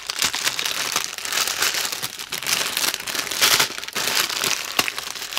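Crinkle noise of plastic packaging: a long strip of small plastic bags of diamond painting drills being handled and spread out, a dense, irregular run of crackles.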